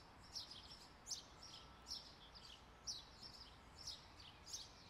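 Faint songbird chirps outdoors: a run of short, high, falling notes about every half second, over a low, steady background hiss.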